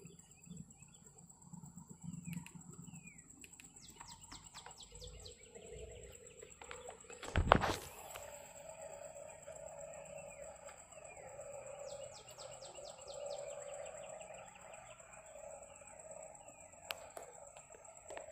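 Birds chirping outdoors, with quick runs of rapid clicking notes, and a single loud knock about seven and a half seconds in.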